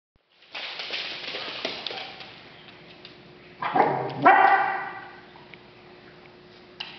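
Dogs playing on a hardwood floor: scuffling with scattered clicks for the first couple of seconds, then two loud play barks about four seconds in.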